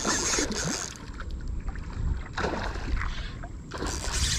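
Hooked redfish thrashing and splashing at the water's surface right beside the paddleboard, in several short bursts of splashing about two seconds apart.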